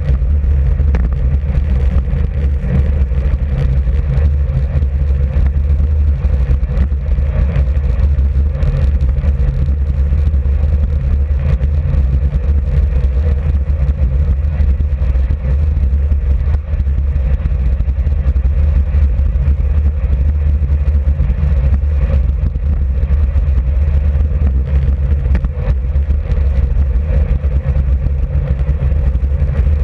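Wind buffeting the microphone of a camera on a road bicycle coasting at about 40 km/h, mixed with tyre noise on coarse tarmac: a loud, steady low rumble.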